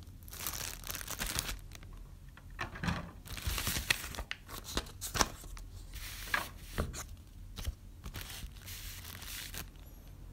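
Crinkling and rustling of a clear plastic bag wrapped around the microphone's cable, along with a paper instruction sheet being handled, in several bursts with sharp crackles. The handling stops shortly before the end.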